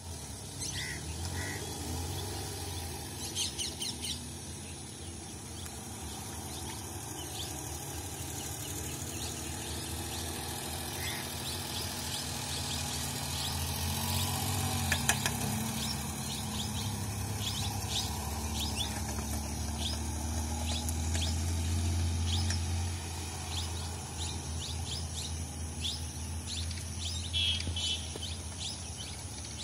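A small car's engine running at low speed as it is driven around a tight figure-eight course, a low hum that grows louder about halfway through and again later, with birds chirping throughout and one sharp click around the middle.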